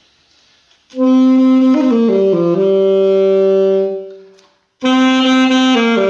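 Alto saxophone played with less of the mouthpiece taken into the mouth, the shallower embouchure meant to give a more controlled, pleasant tone. A short phrase steps down a few notes into a held low note, stops, and starts again about a second later.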